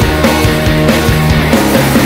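Loud rock music playing continuously with a steady beat.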